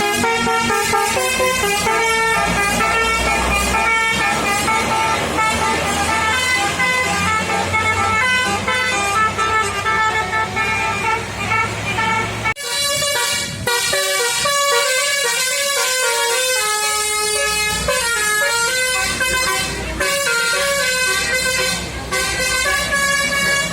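Basuri telolet horn playing quick melodic runs of changing horn notes. About halfway through it breaks off sharply, then starts another tune.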